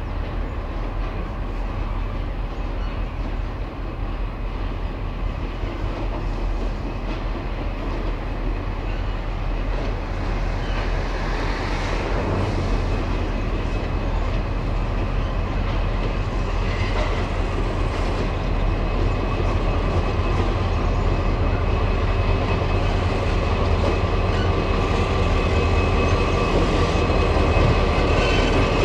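Several diesel locomotives, G-class G543 leading, hauling a loaded grain train: the engines run with a steady drone that grows gradually louder as the train approaches and draws alongside, mixed with the rumble of wagon wheels on the rails.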